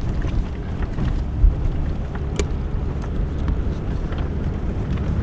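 Steady low rumble of a vehicle driving, with a single sharp click about two and a half seconds in.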